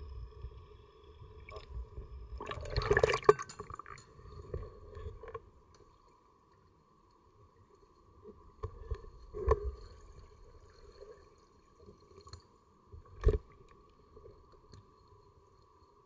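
Underwater sound in a swimming pool: a burst of splashing and bubbling as a diver submerges about three seconds in, over a steady hum. Later come a few sharp knocks, the sharpest about thirteen seconds in.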